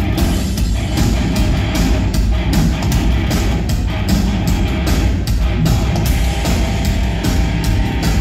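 Heavy metal band playing live and loud: distorted electric guitar, bass and drums keeping a steady, driving beat, with a heavy, booming low end.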